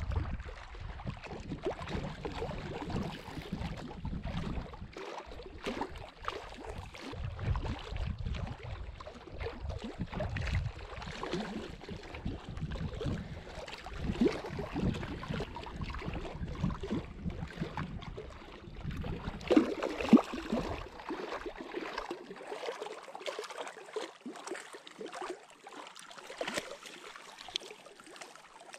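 Wind buffeting the microphone over small waves lapping a stony lakeshore, with scattered splashes and knocks, the sharpest about twenty seconds in. The low wind rumble drops away about two-thirds of the way through, leaving the lapping water.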